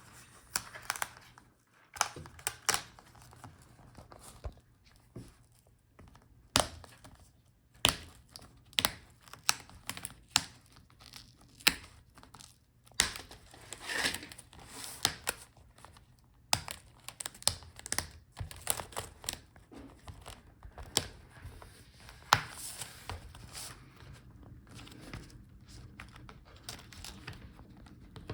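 Plastic front bezel of a laptop display being pried off its clips and adhesive with a plastic pry tool: an irregular string of sharp clicks and snaps, with crackling as the adhesive lets go, thinning out near the end.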